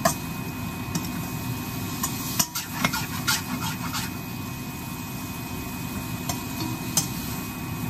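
Metal spatula scraping and clinking against a stainless steel pan as dried anchovies and cherry tomatoes are stirred, with a cluster of sharp clinks about two to four seconds in and one more near the end, over a steady low hum.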